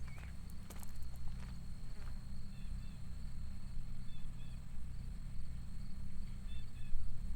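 Countryside ambience: a steady high-pitched insect trill, with short high chirps in pairs a few times. There are a few footsteps on the path in the first second or so, over a constant low rumble.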